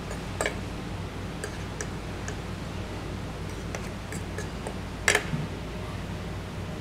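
Metal spoon and fork clinking and scraping against a ceramic plate: a handful of scattered clicks, with one louder clink about five seconds in. A steady low hum runs underneath.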